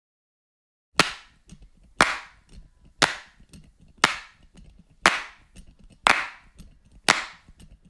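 Sharp clap-like percussive hits, one a second, seven in all, each fading quickly with faint small clicks between them.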